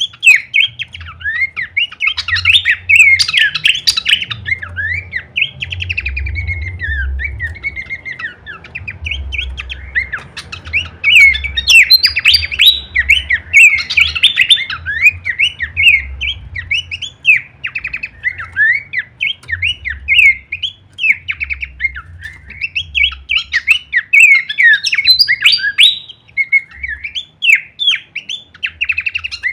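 Pelanduk semak babbler singing a fast, varied chattering song of quick sliding notes, almost without pause, over a faint low rumble.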